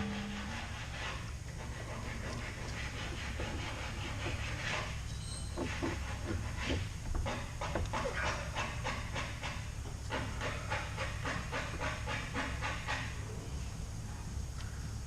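Irregular metallic clinks and scrapes as a new CV axle and the surrounding suspension parts are handled and worked into place, over a steady low hum.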